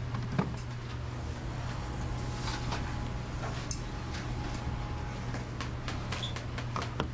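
Restaurant kitchen background: a steady low hum with scattered clicks, knocks and clatter from kitchen work.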